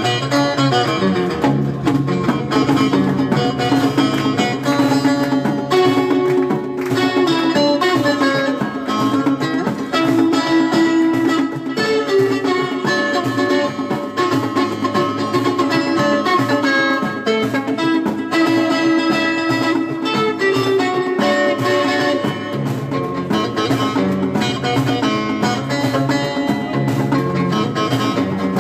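Instrumental music on plucked string instruments, a busy run of quickly changing notes over a steady lower part, without singing.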